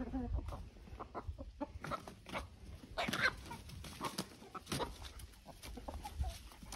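Backyard chickens clucking: short, scattered calls now and then.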